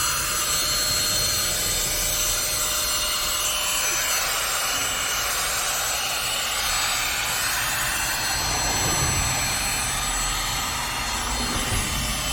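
Vacuum cleaner running steadily while cleaning a car's interior, a continuous whooshing whine whose tone shifts a little as the nozzle moves over surfaces.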